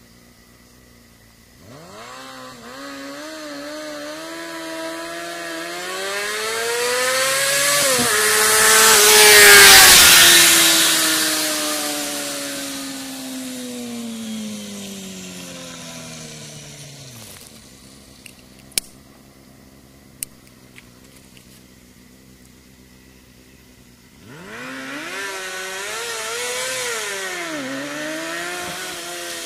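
Honda CBR250RR motorcycle exhaust as the bike accelerates past at high revs: the pitch climbs, drops at a gear change about eight seconds in, peaks as it passes near ten seconds, then falls away as it recedes. Two sharp clicks come near twenty seconds, and from about twenty-four seconds the bike approaches again, revving up and down through its gears.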